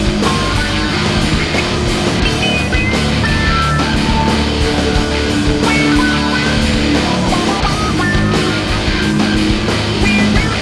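Loud instrumental music with a steady beat and short melodic notes over a low sustained bass.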